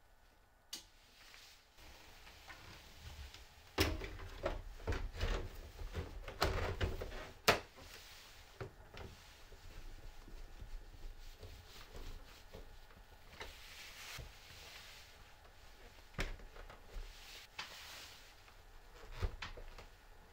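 Irregular knocks and clicks of hard objects being handled, thickest about four to eight seconds in, with the sharpest knock about seven and a half seconds in, then a few scattered ones.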